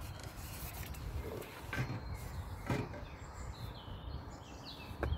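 Riverside ambience: birds chirping faintly over a low steady rumble, with a few light knocks about two and three seconds in and again near the end.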